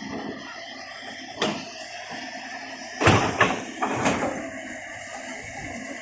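Several sharp knocks and bangs over steady background noise: a single knock about a second and a half in, then a loud cluster of three or four about halfway through.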